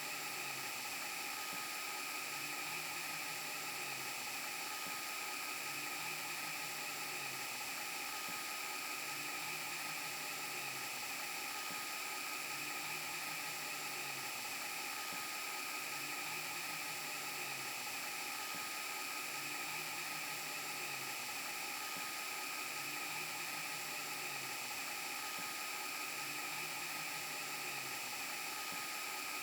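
VHS rewind and broken-TV glitch sound effect: a steady static hiss with a high steady whine, and a low warbling hum that swells about every three seconds.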